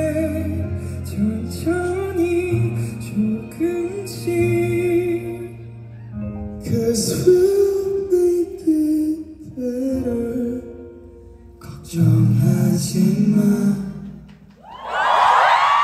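Live band playing the closing bars of a slow pop-rock song, with male vocals over stage piano and bass and two short pauses in the music. Near the end the music stops and the crowd bursts into high-pitched screaming and cheering.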